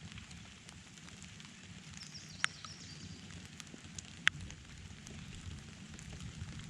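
Rain falling, with scattered drops ticking close by and two sharper drop hits about two and a half and four seconds in, over a steady low rumble.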